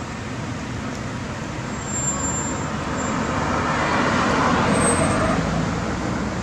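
A car driving past on the road, its noise swelling to a peak about four to five seconds in and then fading.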